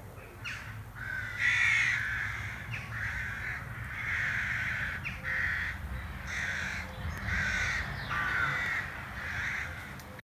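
Rooks cawing: a long series of harsh caws, one after another, about one a second, over a low steady rumble. The calls cut off suddenly near the end.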